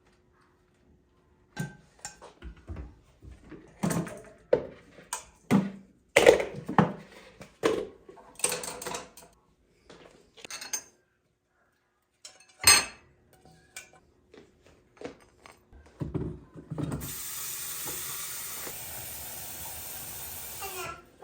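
Dishes, pots and cutlery clattering as they are handled and set down in a kitchen, with a sharp knock about halfway through. Near the end comes a steady rush of running tap water for about four seconds.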